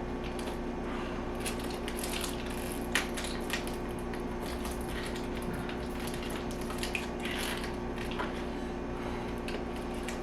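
Plastic parts being forced together by hand: irregular creaks, scrapes and clicks as a tight-fitting end is pushed onto a too-narrow fitting, with a sharp click about 3 seconds in. A steady low hum runs underneath.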